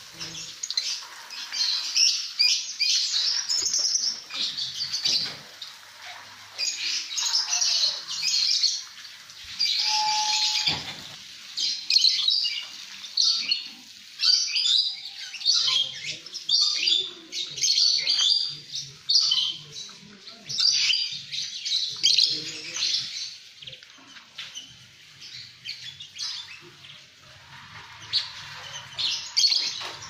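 A flock of lovebirds chattering, with shrill, high-pitched chirps that come in quick, overlapping clusters.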